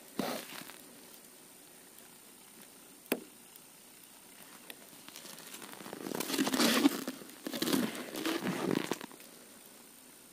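Rustling and crinkling from gloved hands handling gear in a plastic bucket. A short rustle at the start, a single sharp click about three seconds in, then longer bursts of rustling from about six to nine seconds in.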